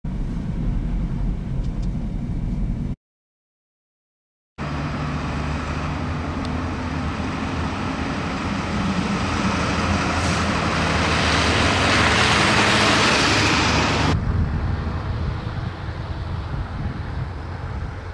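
Heavy vehicles, an ambulance and trucks among them, driving on a slushy, snow-covered road: a steady engine drone with tyre hiss on wet snow that swells as a vehicle passes close, then drops off suddenly. The sound cuts to dead silence for about a second and a half after about three seconds.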